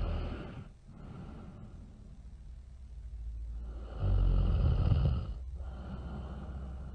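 A cartoon character snoring really loud. A snore trails off in the first second, then comes a quieter rumbling breath, and a second loud snore about four seconds in lasts over a second before easing back.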